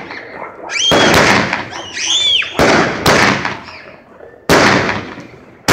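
Dominator Headshot 200-gram 8-shot firework cake firing: sharp, loud bangs of its lift charges and shell breaks, roughly one to two a second and loosely in pairs, each fading off before the next.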